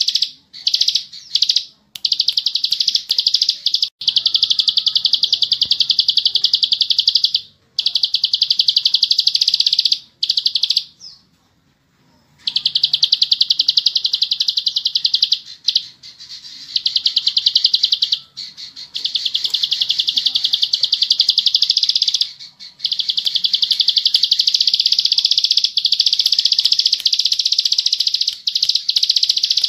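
Bar-winged prinia (ciblek sawah) singing long, very fast, dense high trills, in phrases of several seconds separated by short pauses, with a silent gap of about two seconds near the middle.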